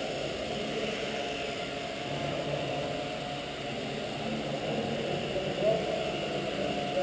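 Small electric radio-controlled model helicopter hovering, its motor and rotor blades giving a steady whine, with a short rise in pitch near the end.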